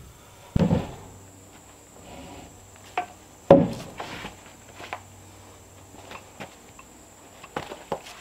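Heavy peeled log rail being set down and shifted on top of wooden posts: two loud wooden knocks, about half a second in and about three and a half seconds in, with a lighter knock just before the second and a few lighter knocks near the end. A steady high insect buzz runs underneath.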